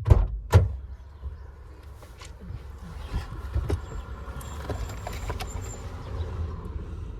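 Two loud knocks in quick succession, then scattered clicks and rustling of handling over a steady low rumble.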